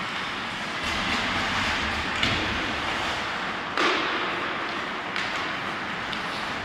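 Ice hockey play in an indoor rink: skates scraping the ice under a steady arena rumble, broken by a few sharp knocks of stick, puck and boards, the loudest just before four seconds in.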